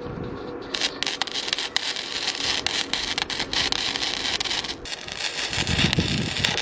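Stick welding arc crackling and sizzling as the rod burns in, starting about a second in and stopping just before five seconds. A low steady hum runs underneath.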